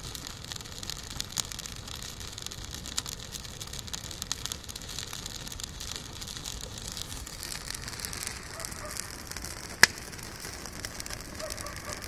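Twig and brush fire crackling in a washing-machine-drum fire pit: frequent small irregular pops, with one much louder snap about ten seconds in.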